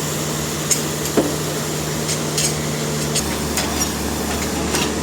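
Sawmill machinery running with a steady low hum that drops to a lower pitch about three seconds in, with scattered knocks and clicks over it.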